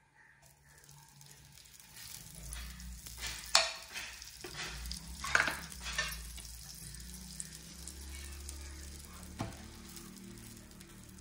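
Butter sizzling in a hot pan, building up after about half a second. A few sharp clatters of a utensil on the pan stand out, the loudest about three and a half and five and a half seconds in.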